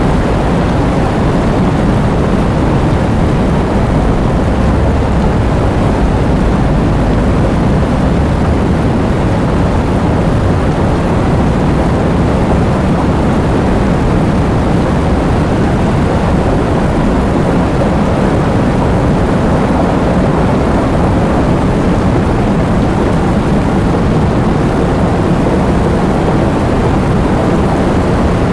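Heavy rain with strong wind, a loud, steady, dense roar weighted toward the low end, with no distinct drops or gusts standing out.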